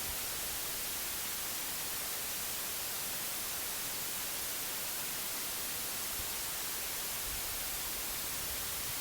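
Steady white noise: an even hiss, brightest in the high end, holding the same level throughout.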